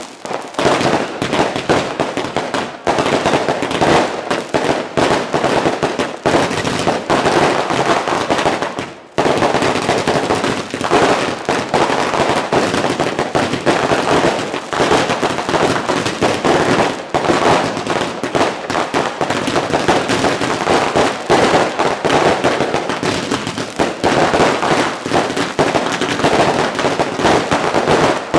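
New Year's Eve fireworks and firecrackers going off in a dense, rapid barrage of bangs and crackling. It breaks off briefly about nine seconds in, then carries straight on.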